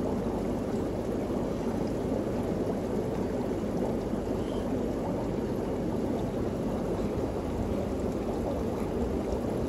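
Steady rushing water noise from a guppy tank, even and unchanging throughout.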